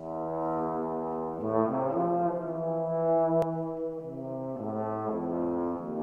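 A bass trombone and a tenor trombone playing a duet, entering together on held notes at the start and moving to new pitches every second or so, the two lines sounding at the same time.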